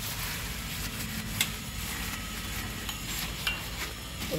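Wet rubbing and dabbing as a homemade liquid cleaner is spread over a ceramic washbasin, with a sharp click about a second and a half in.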